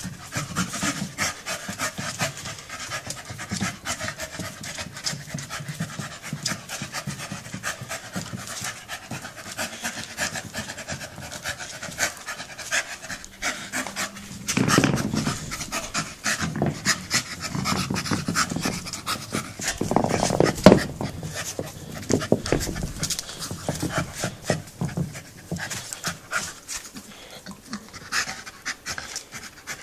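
Staffordshire bull terrier panting hard as it pushes and mouths a bowling ball across brick paving, with a steady run of small clicks and scrapes from teeth and claws on the ball. Heavier, deeper knocks or rumbles come about halfway through and again a few seconds later.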